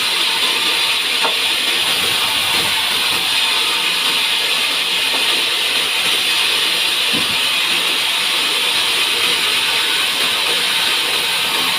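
Sawmill saw running steadily on a pine log, a continuous hiss at an even level with no breaks.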